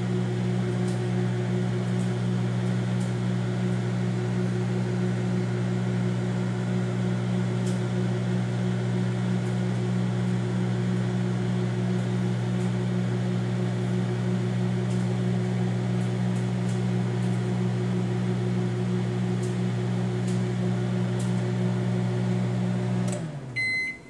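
Hamilton Beach microwave oven running with a steady low hum. Near the end it shuts off, the hum sinking as it winds down, and a beep sounds as the cooking time ends.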